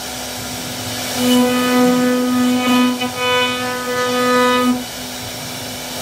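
CNC wood router carving a panel: a steady high machine whine at one fixed pitch comes in about a second in and drops away near the end, over a constant rough cutting noise.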